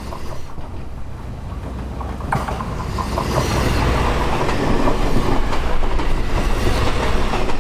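JR East GV-E400 series diesel-electric train running past, its engine hum and rolling noise growing louder from about two seconds in, with a few wheel clacks over rail joints.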